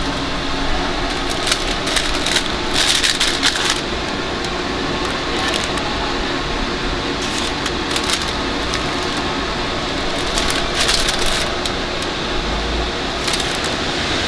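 Steady background hum with several short bursts of light clattering and clinking of small hard objects.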